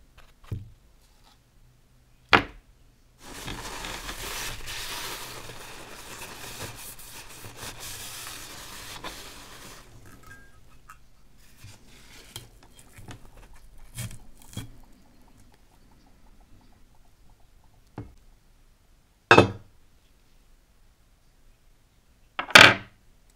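Small brass kerosene lamp parts being handled: a light click, a rough hissing noise lasting several seconds, scattered small clicks, then two sharp knocks near the end as brass burner parts are set down on a wooden table.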